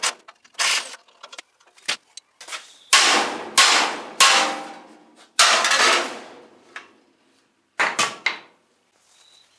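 Hammer blows on the old steel front cross member of a 1930 Ford pickup chassis, knocking it loose. Four heavy strikes each leave the steel ringing, and a quick run of three sharp clanks follows near the end, after a few lighter knocks at the start.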